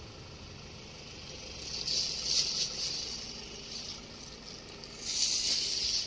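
Sea waves surging onto a rocky shore in monsoon swell: two hissing rushes of surf, about two seconds and five seconds in, over a steady wash.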